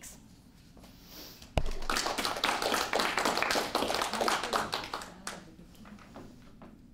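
A small audience applauding: it starts suddenly with a thump, runs for about three and a half seconds and tapers off.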